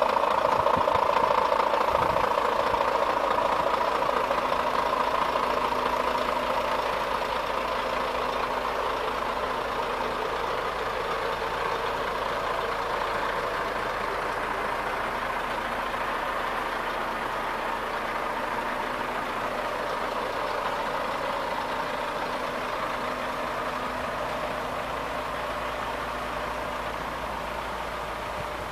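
Scania R440's 13-litre inline-six diesel engine idling steadily, gradually getting quieter.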